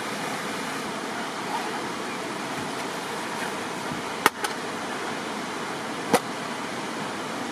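Steady rushing noise with three sharp clicks: two in quick succession a little past halfway, and one more about two seconds later.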